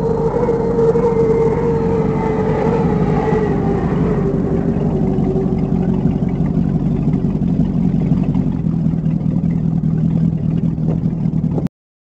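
Powerboat engine running under way, with water rushing along the hull; its pitch sinks slowly over the first half, then holds steady until the sound cuts off suddenly near the end.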